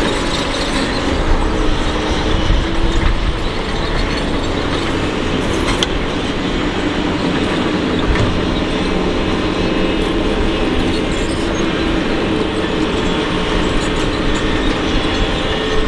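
Doosan DX225LC hydraulic excavator working under load as it digs, lifts and swings its bucket: a steady diesel engine drone with a constant hydraulic whine over it and an occasional faint clank.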